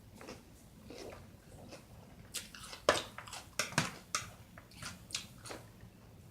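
A person chewing food close to the microphone: irregular wet mouth clicks and smacks, a cluster of louder ones in the middle.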